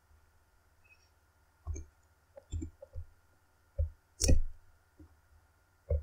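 A handful of short, soft computer mouse clicks, about six spread out, the sharpest and loudest a little past four seconds in.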